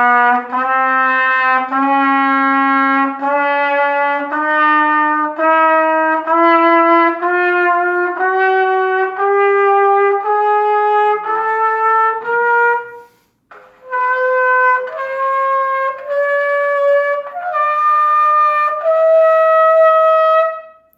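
Bach TR300 B-flat student trumpet playing a slow ascending chromatic scale, one tongued note per step, climbing steadily by semitones. There is a brief break for breath about two-thirds through, then the climb continues to a longer top note near the end.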